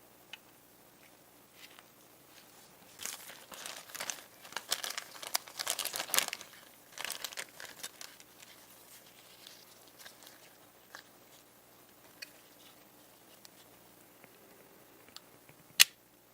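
Crinkling, tearing handling noise for several seconds, like thin material such as paper, plastic or tape being worked by hand, then a few small ticks and one sharp click near the end.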